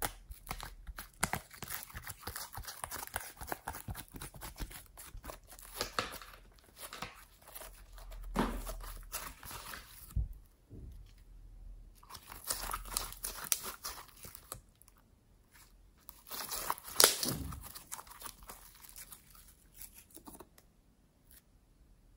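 Glossy slime being pressed, peeled out of a plastic tray's wells and squished by hand, making sticky clicks and pops in bursts, quieter near the end.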